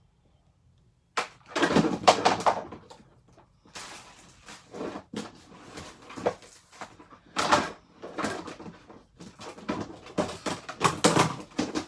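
Objects being handled and moved about on a tabletop: a string of irregular knocks, clatters and rustles, starting about a second in.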